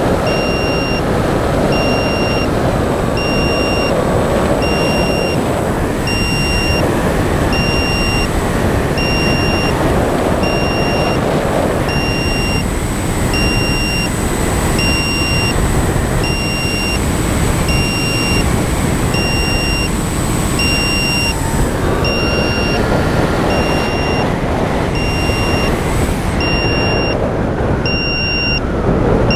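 Wind rushing over the camera microphone of a foam RC plane in flight, with the electric motor's whine sliding up and down in pitch with the throttle. A short electronic beep repeats about once a second.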